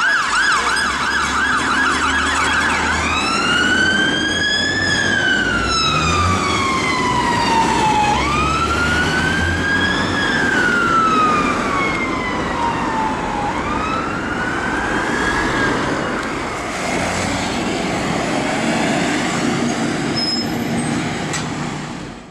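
Dennis Sabre fire engine's electronic siren on a fast yelp, switching about three seconds in to a slow wail that rises and falls roughly every five seconds, over the low rumble of the diesel engine pulling away. The wail grows fainter and the sound fades out near the end.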